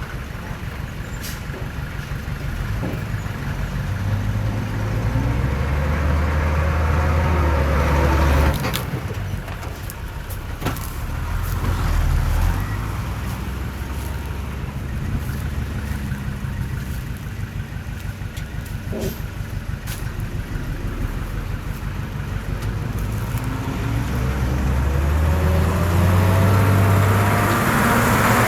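Heavy diesel earthmoving machinery at work: a low engine rumble that swells louder under load three times. A few sharp knocks sound in between.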